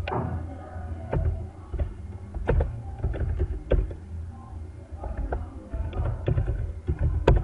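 Computer keyboard keystrokes: about a dozen sharp, irregular clicks from slow typing, over a steady low hum.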